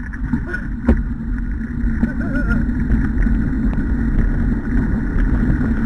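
Steady low rumble of wind and handling noise on a moving camera's microphone while running behind sled dogs on a wet track. There is a single knock about a second in and a short wavering call about two seconds in.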